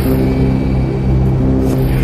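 Soundtrack music of held low notes that change pitch about once a second.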